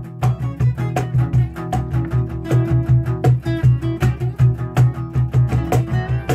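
Acoustic guitars strummed in a steady, quick rhythm, their low notes pulsing with every stroke.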